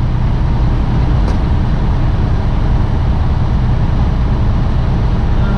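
Semi-truck's engine and road noise heard inside the cab while cruising on the highway: a steady low rumble.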